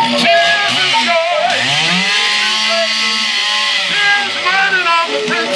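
Chainsaw engine revving up twice and holding at high speed, with a man shouting into a microphone over it.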